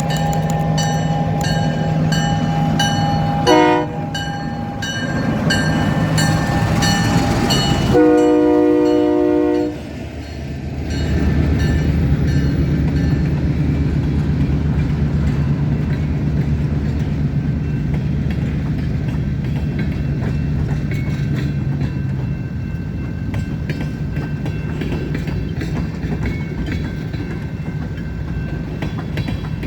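Union Pacific SD70M diesel locomotive passing with a freight train: a bell ringing rapidly, a short horn toot about three and a half seconds in and a longer, louder horn blast around eight seconds in. After that come the steady drone of the locomotive's diesel engine and the rumble and clickety-clack of the freight cars rolling by.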